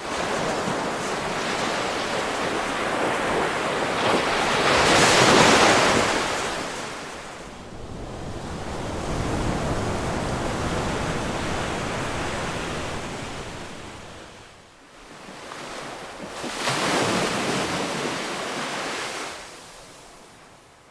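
Ocean surf: waves breaking and washing up the shore in a steady rush. Two waves stand out louder, one about five seconds in and another near seventeen seconds, and the wash ebbs between them.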